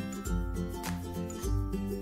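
Background music with a steady bass line.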